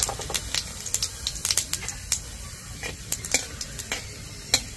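Dried red chillies and cumin seeds sizzling in hot mustard oil in a metal kadai for a tempering, with a metal spatula stirring and scraping against the pan in a run of sharp clicks and scrapes, the loudest right at the start.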